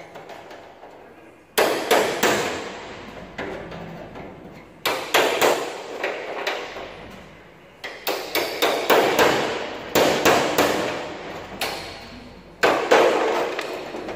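Hammer blows on a steel drift held against the hinge of an old steel truck bonnet, knocking out rivets that have been ground down to free the hinge. The sharp metallic strikes come in bursts of several quick blows with short pauses between, starting about a second and a half in.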